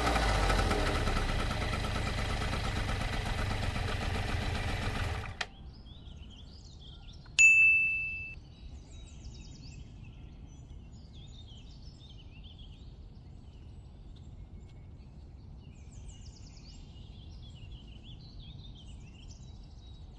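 A loud, dense noise for about five seconds that cuts off abruptly. About two seconds later comes a single bright bell-like ding that rings and fades. Then birds chirp faintly over quiet outdoor background noise.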